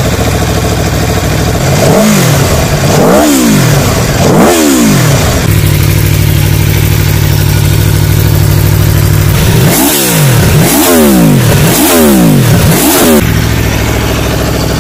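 Aprilia Tuono V4 Factory's V4 engine idling in neutral and being revved on the throttle: three sharp rises and falls in pitch in the first few seconds, a steady idle, then four more quick revs about a second apart before it settles back to idle.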